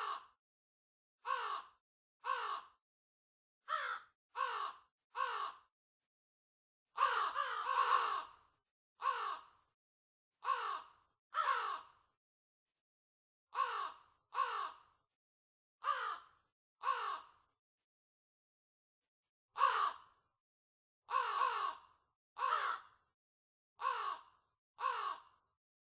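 A flock of crows cawing: harsh caws of about half a second each, mostly in runs of two or three with short silent gaps between, some calls overlapping.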